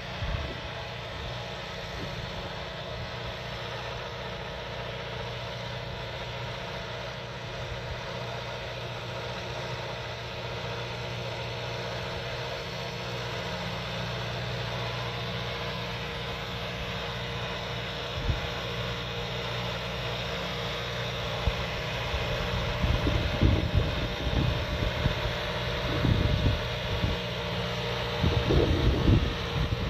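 Valtra C120 tractor's diesel engine running steadily under load as it pulls a slurry tanker spreading slurry, growing louder as it comes closer. Wind buffets the microphone in the last several seconds.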